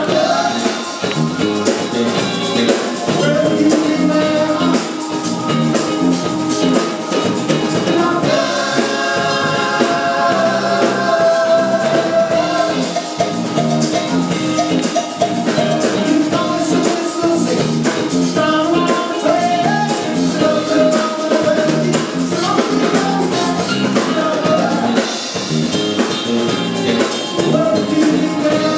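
Live band playing a song, with a singer over a drum kit.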